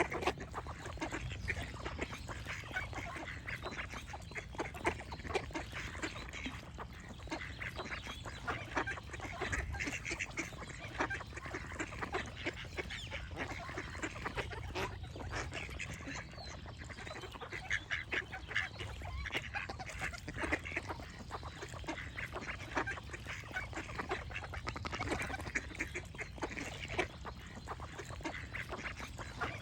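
A flock of ducks quacking and calling, many short calls overlapping without a break, over a steady low rumble.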